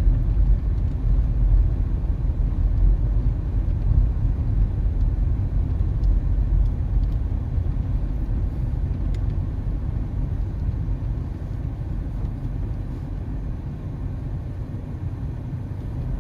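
Minivan driving along a road: a steady low rumble of engine and road noise, easing off somewhat in the second half as the van slows.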